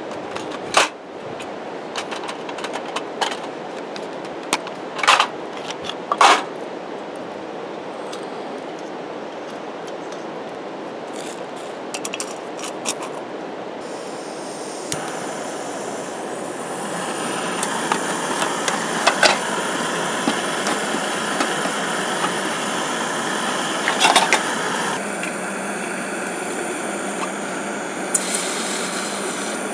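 Metal tins and cooking gear clattering as they are unpacked. About halfway through a backpacking gas canister stove starts hissing, then burns with a steady roar. Near the end water is poured into the pot on it, all over a steady background rush.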